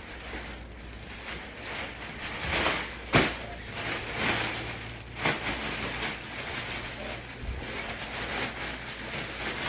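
Cleaning-up noises: steady rustling and shuffling of things being handled and cleared, with a few sharp knocks, the loudest about three seconds in and another about five seconds in.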